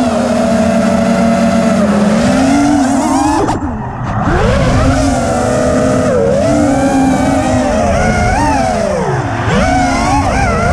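Brushless motors and propellers of a 5-inch FPV freestyle quadcopter whining, heard from the camera on board, with the pitch rising and falling as the throttle is worked. The sound drops briefly about three and a half seconds in, and the pitch dips deeply near the nine-second mark.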